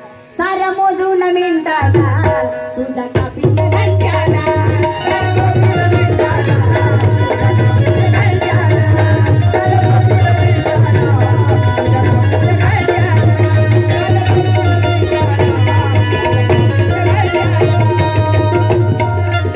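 Qawwali music played live through PA loudspeakers: harmonium and voices carrying the melody over steady hand-drum playing with a heavy bass thump. After two short melodic phrases, the full ensemble with drums comes in about three seconds in.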